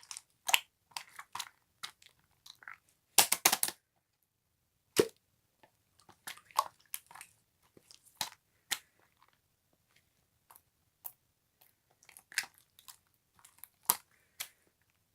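Close, sharp crunching and clicking sounds at irregular intervals, with a quick cluster of them about three seconds in.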